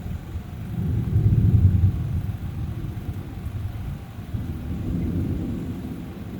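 Distant thunder rumbling low and long, swelling about a second in, easing off, then building again near the end.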